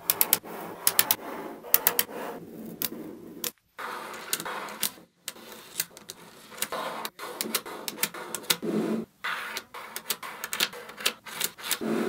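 Small metal magnetic balls clicking and clattering as they snap together and are pressed into rows and a flat sheet: irregular sharp clicks with short stretches of rattling, broken by a few brief gaps.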